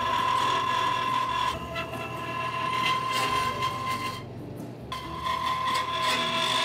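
Vertical bandsaw cutting through thick aluminium plate: a steady whine from the blade in the cut, with a short break about four seconds in.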